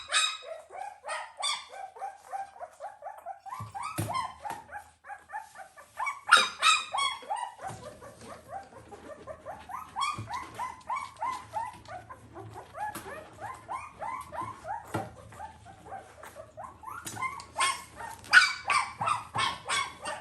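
Newborn puppy squealing and whining in a rapid run of short cries, each rising in pitch, several a second, fussing as it is bottle-fed milk. The cries get louder and more insistent twice, about six seconds in and again near the end, and sharp clicks are scattered among them.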